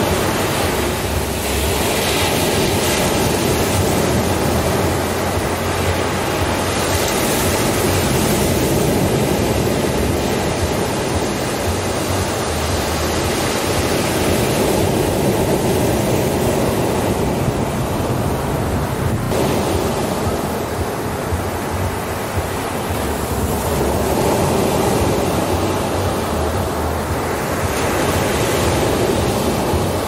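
Ocean surf: waves breaking and washing up a sandy beach, a continuous rush of water noise that swells and eases every several seconds.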